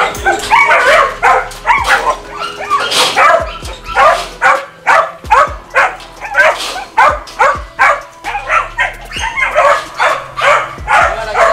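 Dogs barking over and over, about two to three barks a second.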